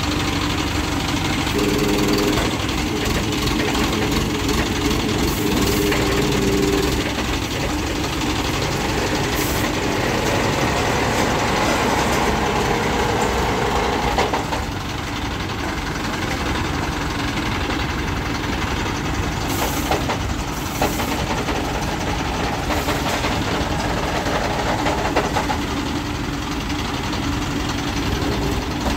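Diesel engine of a Shakti-15 pick-and-carry mobile crane running steadily, with a hum that changes pitch at times as the crane is worked.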